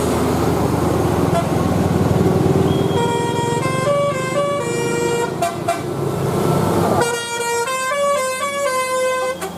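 Bus's multi-tone Basuri telolet air horn playing a short tune of stepping notes, about three seconds in and again about seven seconds in, over bus engine and road noise.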